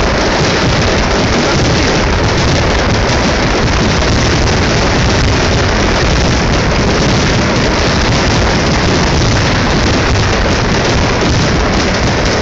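Fireworks finale barrage: so many shells bursting at once that the bangs and crackle merge into one loud, steady din with no single bang standing out.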